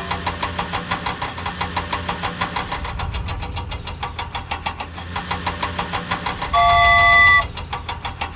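Cartoon toy-vehicle engine sound effect running with a steady rapid chugging, about six or seven beats a second over a low hum. About six and a half seconds in, a loud horn blast sounds for under a second.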